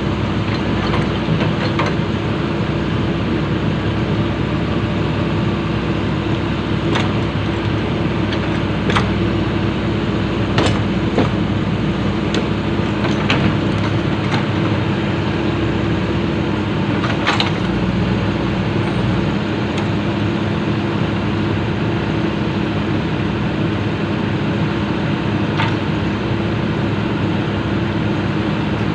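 Komatsu PC200 excavator's diesel engine running steadily, with a scattering of sharp clinks and knocks.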